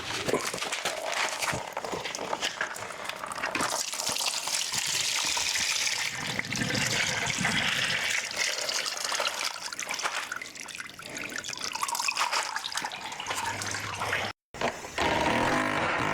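Antifreeze draining out of the engine's cooling system, pouring and splashing into a catch container. Near the end, after an abrupt break, a different steady mechanical whirr begins.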